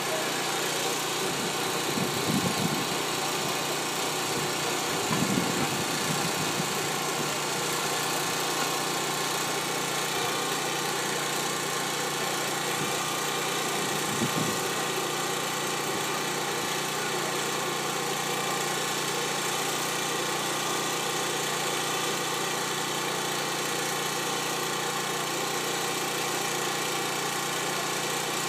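An engine running steadily, a constant hum, with a few brief louder bumps about two, five and fourteen seconds in.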